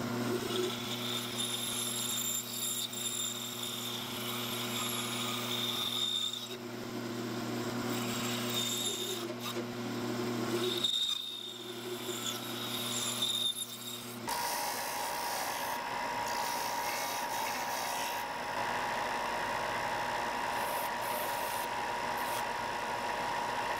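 Scroll saw running and cutting through a poplar lure blank: a steady motor hum with the blade working through the wood, easing off briefly twice. About fourteen seconds in it changes abruptly to a bench belt sander running steadily as the wood is shaped against the belt.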